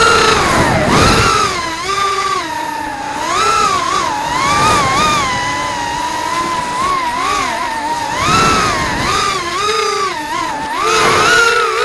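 Shendrones Shrieker FPV racing quadcopter in flight, its brushless motors whining, the pitch rising and falling constantly with the throttle.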